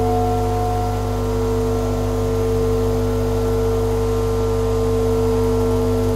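Ambient drone music: several sustained tones held steadily over a deep low hum, with the highest tone fading out about a second in.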